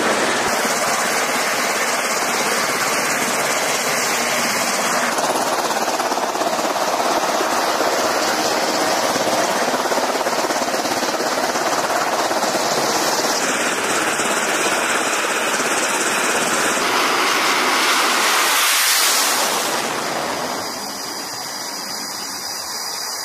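Loud, steady aircraft engine noise that changes abruptly several times, with a rushing swell near the end before it drops quieter.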